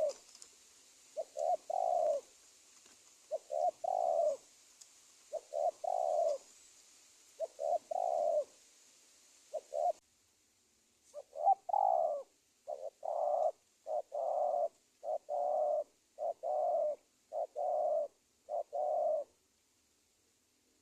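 Spotted dove (tekukur) lure bird cooing: short repeated coo phrases, about one every two seconds, then from about ten seconds in a quicker run of about one a second. It is the lure call used to draw wild doves in.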